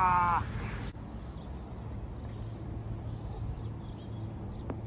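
Outdoor ambience: a steady low hum with faint bird chirps, and a single sharp tick near the end.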